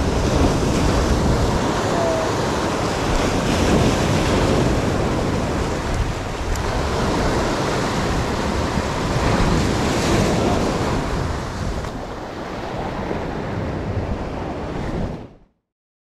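Sea waves breaking and washing against breakwater rocks, with wind buffeting the microphone; the sound cuts off suddenly near the end.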